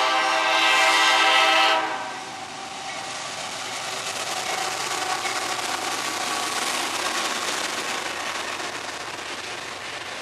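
Freight locomotive air horn sounding a long chord that cuts off about two seconds in, as a CSX freight train reaches a grade crossing. Then the diesel locomotives and freight cars rumble steadily past on the rails.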